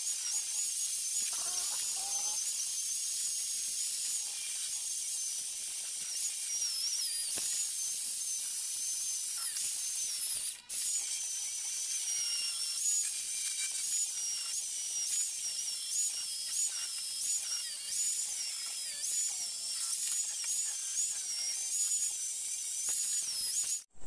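Buildskill electric drill spinning a buffing wheel against an aluminium Yamaha RX100 engine side cover, polishing it to a chrome-like finish. A high motor whine that dips in pitch and springs back again and again as the wheel is pressed onto the metal, more often in the second half, and cuts off just before the end.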